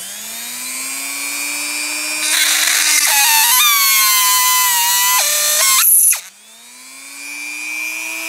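Dremel rotary tool with a diamond-studded cone bit whining at speed while it reams the burred inside of a cut copper-nickel brake line. From about two seconds in it gets louder and its pitch sags under load as the bit grinds into the tube, then near six seconds the motor drops out sharply and spins back up.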